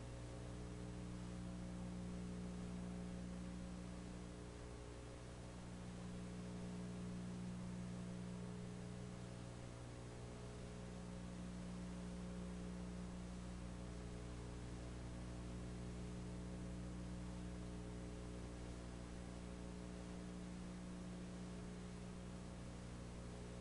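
Steady electrical mains hum, one low buzzing tone with several overtones, over a faint even hiss.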